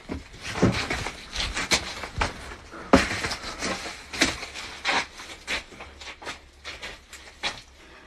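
Scattered knocks, clicks and rustling from someone moving about and handling a phone, irregular throughout, with the sharpest knock about three seconds in.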